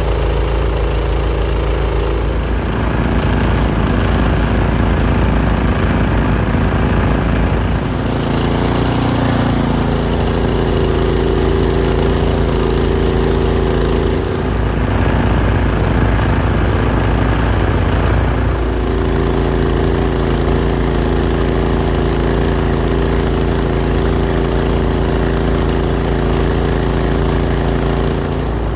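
Small engine of a ride-on scale locomotive running steadily, its speed changing several times, about 2.5, 8, 10 and 18 seconds in, while it pushes through deep snow to clear the flangeways.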